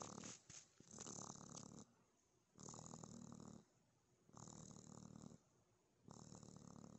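Baby raccoon purring softly as it soothes itself to sleep, in even bouts of about a second with short pauses between, five in all.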